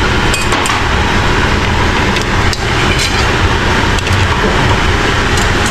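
Metal kitchen tongs click a few times while corn cobs are lifted from a pot onto a plate. Under them runs a loud, steady rushing noise.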